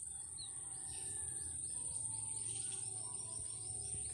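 Insects buzzing in a steady, high-pitched drone, with a quick run of short bird chirps about three seconds in.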